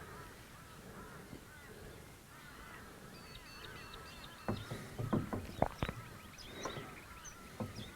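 Birds calling and twittering, with a cluster of short, sharp sounds about halfway through.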